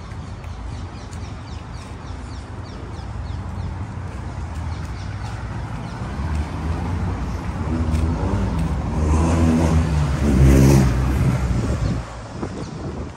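Street traffic on a cobblestone road: a motor vehicle's engine grows louder from about six seconds in, passes close and is loudest at about ten and a half seconds, then the sound drops off sharply about a second later.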